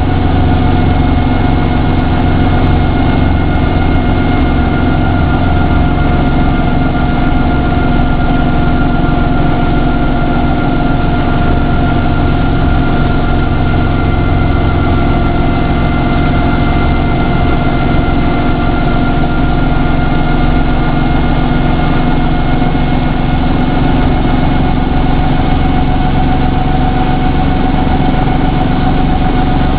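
Brantly piston helicopter's engine and rotor running steadily, heard from inside the open cockpit, with a few high tones held above the drone.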